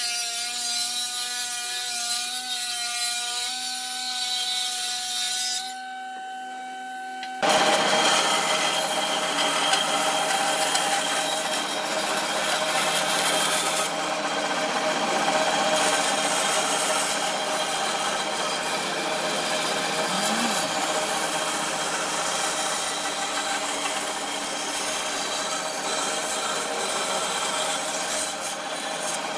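A woodworking machine's motor running with a steady whine for the first few seconds. After an abrupt change about seven seconds in, a band saw cuts a curve through a thick wooden board with a loud, steady rasping noise.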